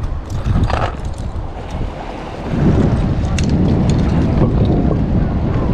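Wind rumbling on the microphone, louder from about two and a half seconds in, with a few light clicks and taps scattered over it.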